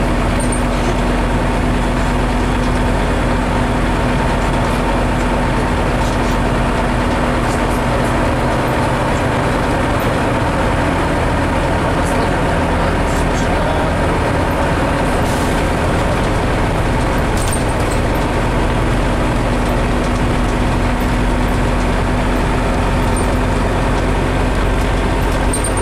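Scania CN270UB city bus heard from inside the passenger cabin while driving: steady diesel engine drone and road noise, with a low hum that fades about three seconds in and comes back near the end, and a few faint rattles.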